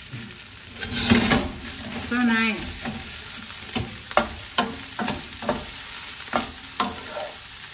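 Shrimp fried rice sizzling in a non-stick frying pan while a wooden spatula stirs it, with a steady frying hiss. From about four seconds in, the spatula knocks and scrapes against the pan a few times a second.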